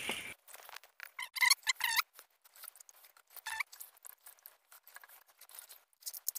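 Wet soaked sticky rice being pressed by hand into the open end of a green bamboo tube: scattered soft clicks, scrapes and wet squishes, with a few short squeaky scrapes about a second and a half in and again midway.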